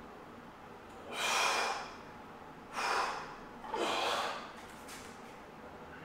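A weightlifter breathing hard during a set of behind-the-neck barbell overhead presses: three forceful breaths about a second apart, the first the longest.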